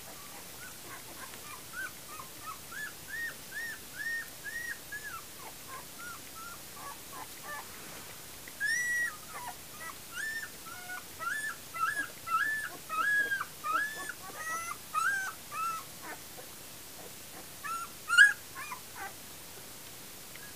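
Ten-day-old puppies whimpering and squeaking: a string of short, high-pitched squeals, several a second, growing louder in the middle, with one sharp, loudest squeak near the end.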